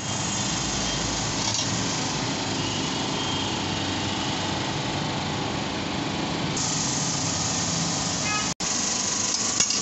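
Steady mechanical running noise from a small motor, with a momentary gap about eight and a half seconds in and a sharp click near the end.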